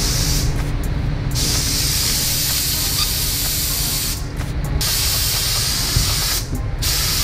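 Compressed-air spray gun with a pressure pot spraying contact adhesive: a loud hiss in several bursts, each a second or more, with short breaks between trigger pulls. A steady low rumble runs underneath.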